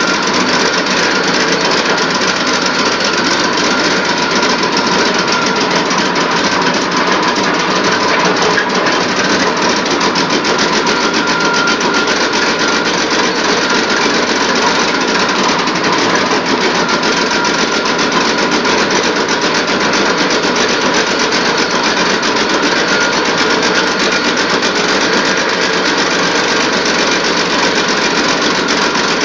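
4.1-litre Chevrolet inline-six engine running steadily on wood gas from a gasifier while it drives an alternator. A fast, even beat of firing pulses with a faint whine over it.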